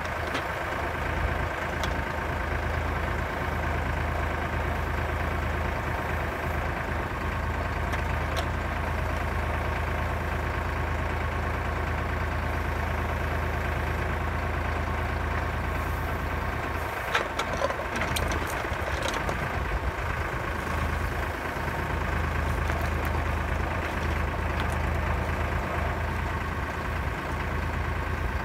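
Kioti tractor's diesel engine running at a steady speed, powering the hydraulic log loader on the trailer. A few sharp clunks come about two-thirds of the way through.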